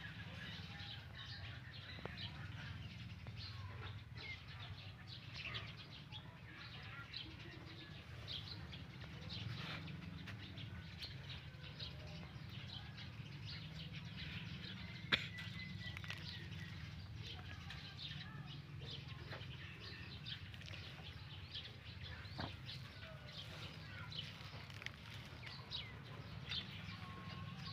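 Faint outdoor background of scattered short bird chirps over a steady low rumble, with one sharp click about halfway through.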